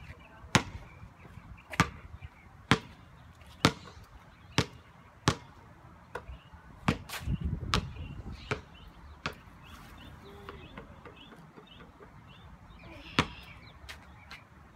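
A basketball bouncing on a concrete driveway: sharp bounces about once a second, then a pause of a few seconds and two more bounces near the end.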